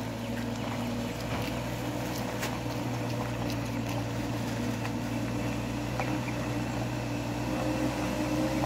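Heavy truck engine running with a steady low drone.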